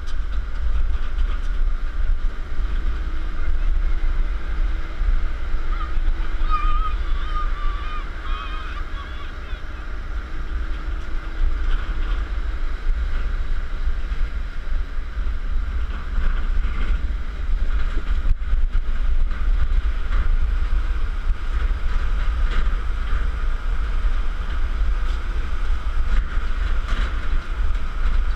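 Wind buffeting the microphone of a camera riding on the back of a pickup truck on a gravel dirt road, a steady heavy rumble with the vehicle's road noise underneath. A brief high warbling sound comes through about six to nine seconds in.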